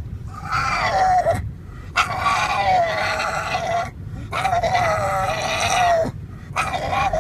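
An animal calling in three long, drawn-out cries, each sliding slightly down in pitch, with short breaks between them.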